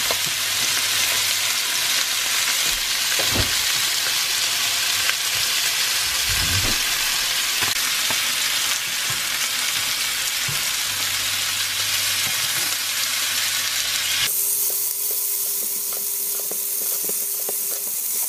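Beef steaks sizzling in hot oil and melted butter in a frying pan, a dense steady hiss while they are basted with a spoon, with a few light knocks. About fourteen seconds in the sizzle abruptly turns thinner.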